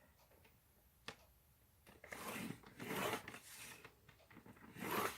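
Scoring blade of a paper trimmer drawn along cardstock to crease it: a single click about a second in, then long rough scraping strokes from about two seconds in, and a shorter one near the end.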